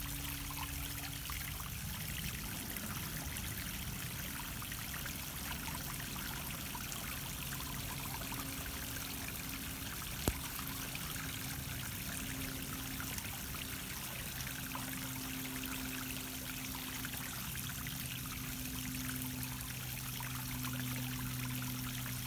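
Small backyard pond waterfall: water spilling over a rock ledge and splashing steadily into the pond, with a faint low hum underneath. A single sharp click about ten seconds in.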